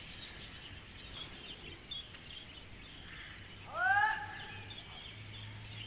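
Open-air background with faint, scattered bird chirps. About four seconds in comes one short call that rises and then holds its pitch, louder than everything else.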